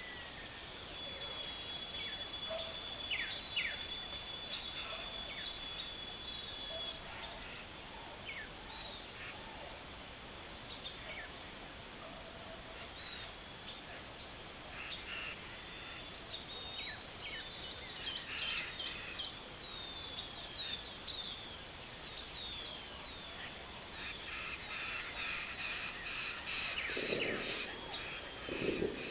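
Many small birds chirping and calling over one another, over a steady high-pitched buzz. Near the end there are a couple of soft low thumps.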